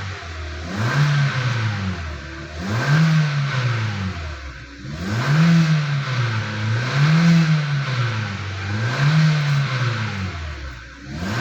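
2016 Hyundai Elantra four-cylinder engine, fan belt removed, revved in short blips about every two seconds, with a steady humming tone underneath. The hum sounds like a malfunctioning power-steering pump. With the belt off, the mechanic puts it inside the engine and suspects a partly clogged oil pump strainer.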